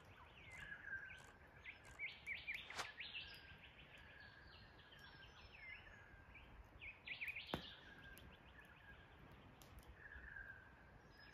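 Quiet bush ambience: many birds chirping and calling in short, gliding notes. Two sharp cracks stand out, one about three seconds in and another past the middle.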